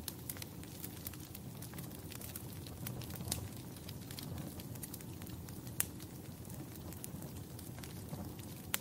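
Wood fire crackling in a fireplace: a steady low rumble of flames with irregular sharp pops, a few louder snaps about three and six seconds in and at the end.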